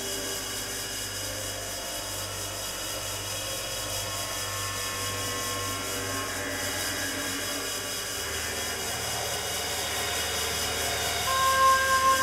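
Background film music of sustained, held tones over a steady hiss, with a louder high note coming in near the end.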